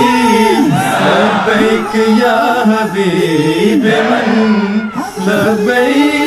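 Male voices singing a slow, chanted vocal piece with long held notes that waver and glide in pitch.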